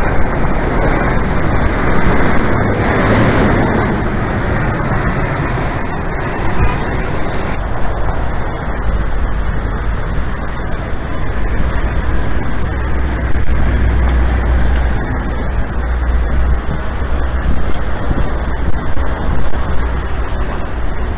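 City street traffic: a steady low rumble of passing cars, buses and trucks, with one vehicle passing louder about two to four seconds in.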